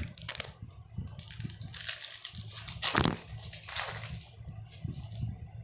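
A foil Yu-Gi-Oh booster pack being torn open and crinkled by hand, with irregular rips and rustles; the two loudest rips come about two and three seconds in.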